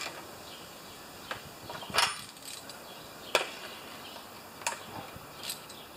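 A few separate sharp metallic clicks and knocks from a ratchet and socket working on a lawn mower engine. The loudest comes about two seconds in.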